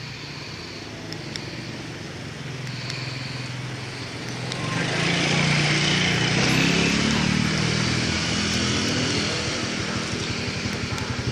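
A motor vehicle engine running steadily, growing louder about four and a half seconds in.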